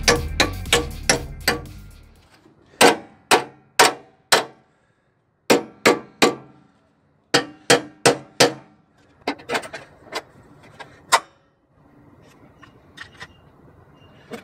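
A hammer striking welded sheet steel on the front frame rail of a Jeep Grand Cherokee ZJ: sharp, ringing blows in quick groups of three or four with short pauses, the last ones lighter. Background music fades out over the first couple of seconds.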